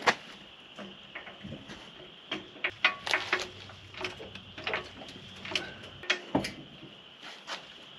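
Scattered clinks and knocks of tools and wheel hardware being handled during a tire change, irregular and unrhythmic, over a faint steady high tone.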